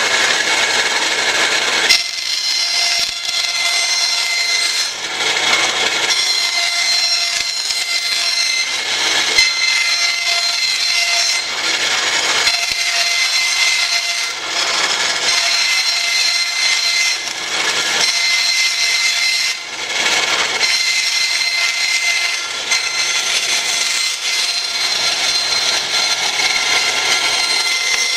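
Bandsaw ripping a thin cedar board into narrow strips. The saw runs with a steady high whine, and the cutting noise swells and eases as the board is fed through the blade.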